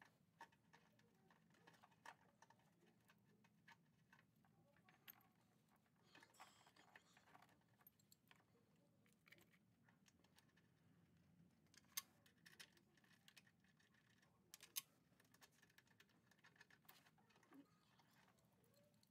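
Near silence with faint, scattered clicks and taps of hand work on car battery cable terminals, and two sharper clicks about twelve and fifteen seconds in.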